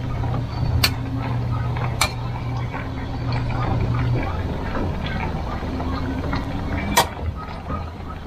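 A metal ladle clinking three times against an aluminium cooking pot, the last clink the loudest near the end, over a steady low hum.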